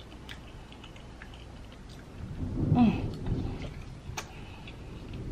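Distant thunder rumbling low from a storm outside, swelling about two seconds in and fading over the next second or two, over faint small clicks of eating.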